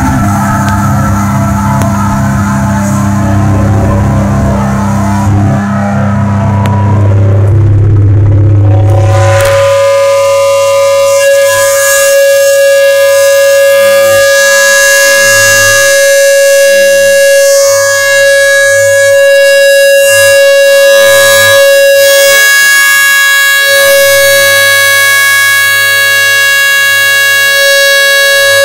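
Distorted electric guitar through an amplifier and speaker cabinet: a loud, noisy wash of chord and noise for about the first ten seconds, then a steady high feedback howl that holds with a few overtones, wavering slightly.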